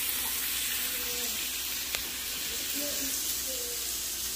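Bacon strips sizzling on a stovetop griddle pan, a steady hiss, with a single faint click about two seconds in.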